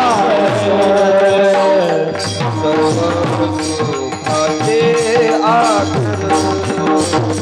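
Marathi devotional bhajan music from a Varkari kirtan: a sung melody that rises and falls over held steady tones, with drum strokes and metallic hand-cymbal strikes keeping a regular beat.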